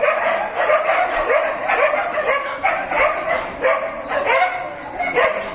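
A dog barking rapidly and repeatedly in high-pitched yips, about three a second, without a break.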